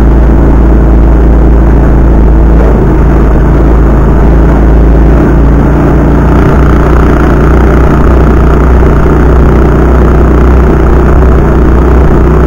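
50cc Cub engine of a home-built four-wheel buggy tractor running steadily as it drives along, loud and close, with a slight change in engine note about halfway through.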